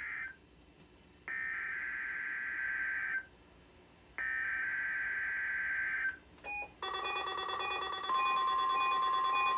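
NOAA Weather Radio SAME data bursts, buzzy digital header tones, come through a Midland WR120 weather radio's speaker: the end of one and then two full bursts with short gaps. About seven seconds in, the radio's own alert alarm starts, beeping in a rapid pulsing pattern, and about a second later the steady 1050 Hz NOAA warning alarm tone joins it, showing that the radio has been activated by the test signal.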